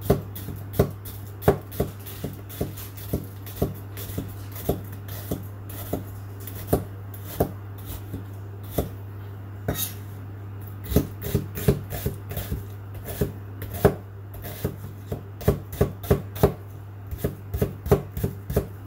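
Miyabi 5000FCD Damascus chef's knife chopping an onion on a wooden cutting board: sharp knocks of the blade on the board, slow and spaced at first, quickening to about three or four a second after about eleven seconds. A steady low hum runs underneath.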